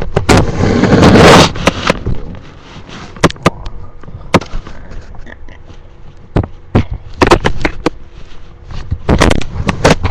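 A hungry stomach growling and gurgling, recorded up close: a loud rush of rubbing noise in the first second and a half, then scattered sharp pops and clicks over a faint low growl.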